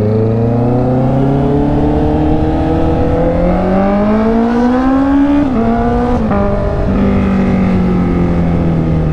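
Honda CB650R's inline-four engine pulling hard, its pitch rising steadily with two brief drops about five and six seconds in as it shifts up. It then runs steadier and eases off slightly toward the end.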